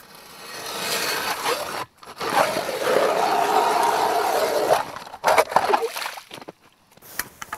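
Nero 130 mm hand ice auger with semicircular blades being cranked down through wet ice: a steady scraping grind that breaks off for a moment about two seconds in, runs on steadily, then turns to a few scattered scrapes and knocks before stopping.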